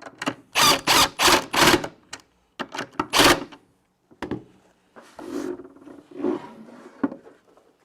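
Impact driver running down the 7/16 clamp bolts that hold a new drain-cleaning cable in the drum, in several short rattling bursts over the first three and a half seconds, followed by quieter handling and scraping of the drum.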